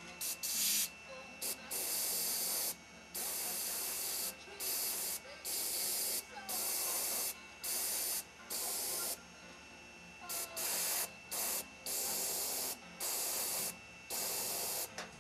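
Airbrush spraying paint onto a carved wooden snake in short bursts of hiss, about fifteen of them with brief pauses between.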